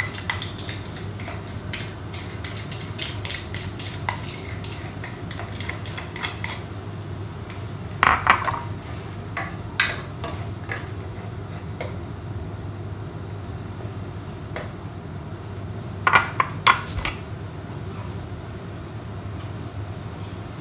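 Kitchen clatter of dishes, pots and utensils being handled: scattered clinks and knocks, with louder bursts of clattering about 8, 10 and 16 seconds in, over a steady low hum.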